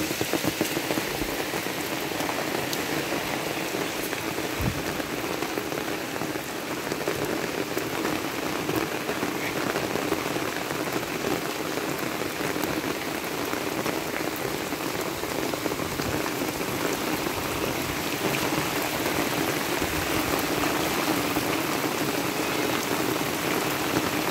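Steady rain falling on wet, flooded ground.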